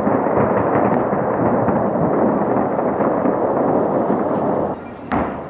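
Fireworks barrage: a dense, continuous noise of many overlapping bursts that drops away near the end, followed by a single sharp bang.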